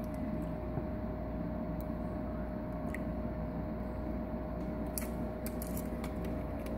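Steady hum and trickle of a turtle tank's water filter running, with one constant mid-pitched tone over a low rumble. From about five seconds in come a few faint clicks as the turtle scrabbles against the basking rock.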